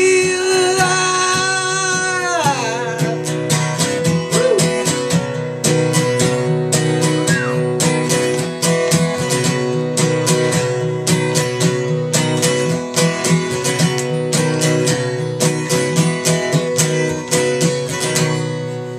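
Acoustic guitar strummed in a steady rhythm, with a long held sung note over it that falls away about two and a half seconds in. The strumming carries on as an instrumental ending and grows quieter near the end.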